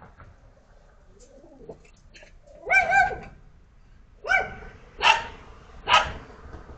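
Small dog barking: two high, ringing yips close together about three seconds in, then three sharper barks a little under a second apart.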